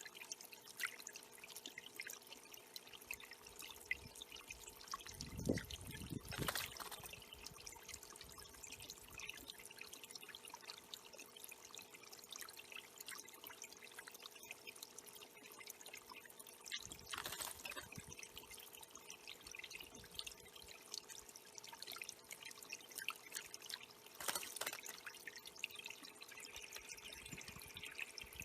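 Water trickling and dripping steadily in a small bird pond, with a faint steady hum underneath and three louder splashy bursts along the way.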